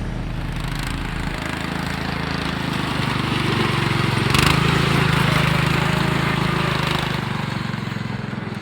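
Riding lawn mower engine running at speed, growing louder to a peak about four and a half seconds in, holding there, then fading again near the end.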